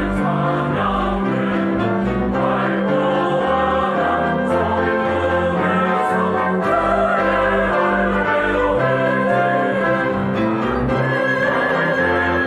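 Mixed choir of men and women singing a Korean hymn anthem, accompanied by a small orchestra with violins.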